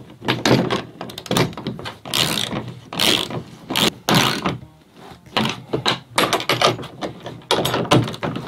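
Socket ratchet wrench tightening nuts onto bolts, its pawl clicking in quick bursts with each swing of the handle, broken by short pauses, until the bolts are snug.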